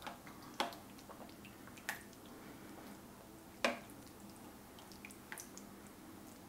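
Serving spoon knocking and scraping against the stoneware crock of a slow cooker while scooping chicken and sauce, with wet squishing and dripping sauce. Three sharper knocks, the loudest about three and a half seconds in, among smaller ticks.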